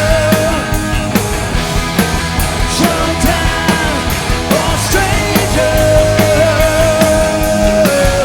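Hard rock band playing live through a stadium PA in an instrumental passage: drums hitting about twice a second under bass and distorted electric guitars, with a lead guitar holding a long, wavering note near the end.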